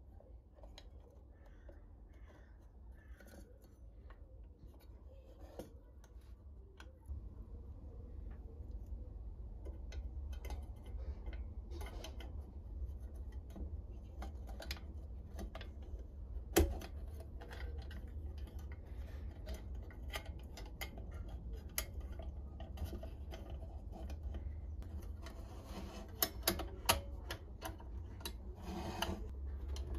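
Small metal clicks, taps and light scraping as the sheet-metal parts of a hurricane oil lantern (burner, frame and wire fittings) are handled and fitted by hand, with one sharper click about halfway through and a cluster of clicks near the end.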